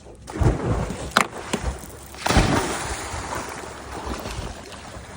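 Water sloshing and splashing around a boat, with a louder rush about two seconds in that slowly fades, and a sharp knock just after a second.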